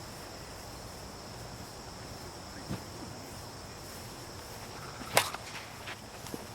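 A single sharp crack about five seconds in, typical of a plastic wiffle bat striking the ball, followed by a few faint clicks. A steady high insect buzz runs underneath.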